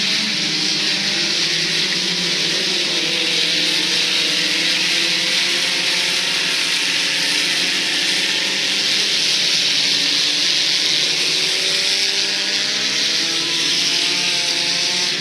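Several sport compact race cars running on track together, their small four-cylinder engines overlapping, with pitches wavering up and down as they lap, over a steady hiss.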